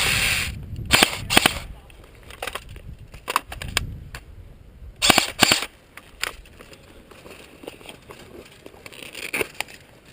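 Airsoft guns firing: scattered sharp pops, single and in quick pairs, with a short burst at the start and the loudest pair about five seconds in.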